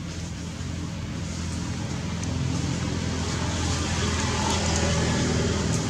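A steady engine drone with a low hum and a hiss above it, slowly growing louder.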